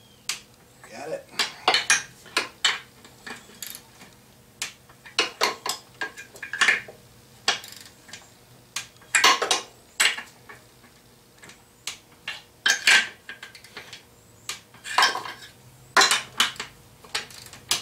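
Torque wrench and socket clicking and clinking on the cylinder-head nuts, nut after nut, as each is rechecked at 20 foot-pounds on a freshly rebuilt two-stroke top end. The sharp metallic clicks come in irregular clusters.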